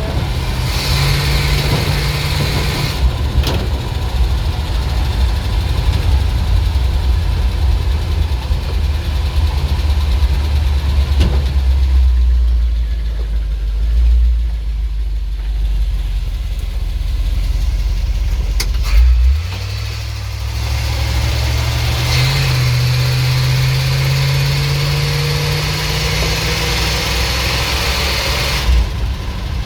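ZIL truck's petrol engine running at idle while its carburettor and ignition are being adjusted for backfiring and poor pulling. About two-thirds of the way in the note changes abruptly, then the engine speed climbs slowly and steadily.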